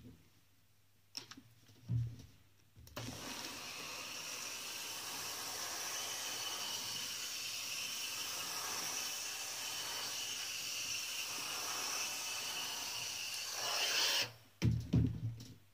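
Steam iron hissing steadily as it pushes steam through a towel, for about eleven seconds, swelling just before it cuts off abruptly. A thump comes before the hiss and a few low knocks after it.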